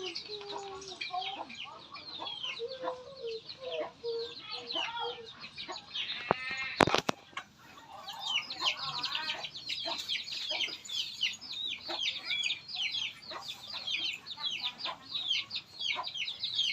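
Chickens clucking and peeping, with many quick high chirps that fall in pitch, densest in the second half, and lower held notes in the first few seconds. A sharp knock about seven seconds in.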